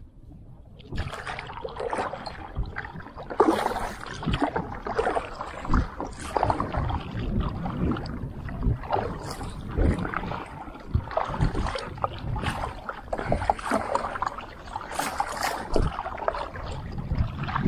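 Irregular water splashing and sloshing around a fishing kayak, starting about a second in and going on in uneven bursts.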